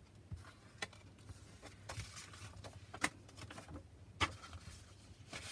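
Paper greeting cards being handled: soft rustling of card stock, with three short, sharp taps as cards knock against each other and the pile.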